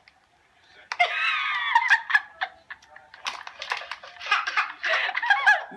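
High-pitched giggling and laughter. It starts about a second in with a high squealing laugh after a brief hush, then comes back as choppy giggles.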